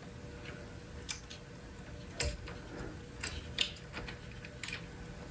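Scattered small metallic clicks and taps of an Olsson Ruby nozzle being worked by hand against the Prusa i3 MK3S hot end's heater block, trying to start its threads, over a faint steady hum. The clicks come at irregular intervals, about eight or nine in all.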